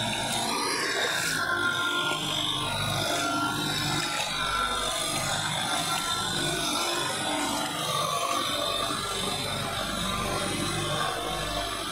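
Sonalika tractor's diesel engine running steadily under load, with its rotavator churning through mud and water in a flooded field, giving a rough grinding rasp over the engine.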